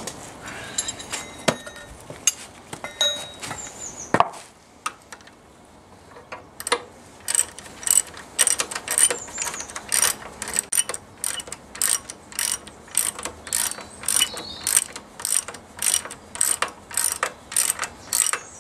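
Socket ratchet wrench running down an 11/16 nut on a shock absorber mounting bolt, the nut nearly tight. Scattered metal clinks and a single knock come in the first four seconds. From about seven seconds in there is a steady clicking of the ratchet pawl, about two to three clicks a second.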